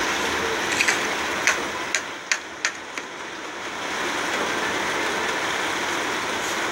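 Iceberg slime being pressed and broken up: a steady fine crackling, with half a dozen sharp clicks and pops between about one and three seconds in.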